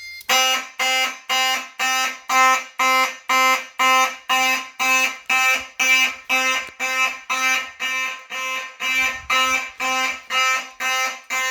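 Simplex fire alarm horns sounding in alarm, a harsh buzzing tone pulsed evenly at about two blasts a second. The system was set off by a magnet test of a Simplex smoke detector.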